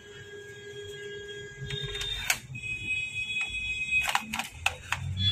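Steady electronic beep-like tones: one pair of tones for about two seconds, then a higher pair taking over, with a few sharp clicks from about four seconds in.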